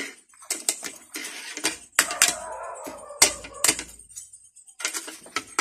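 Kitchen knife cutting into the crisp, crackling skin of a roast pork roll held on a metal skewer, making irregular sharp clicks and crunches as the blade cuts and scrapes.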